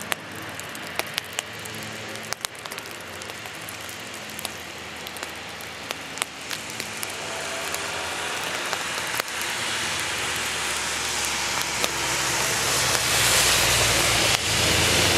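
Steady rain hiss with scattered sharp ticks of drops. Over the second half, race cars come up the soaked track, their engines and tyre spray growing steadily louder.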